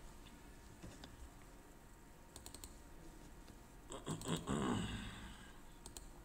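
Faint clicks of a computer mouse, a quick cluster about two and a half seconds in and a few more near the end, as folders are opened one after another. A brief murmur of voice comes about four seconds in.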